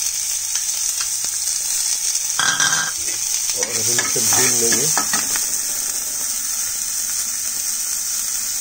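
Chopped onions and cumin frying in ghee in a metal kadai, a steady sizzling hiss. Between about two and five seconds in, a long steel ladle stirs them, scraping against the pan.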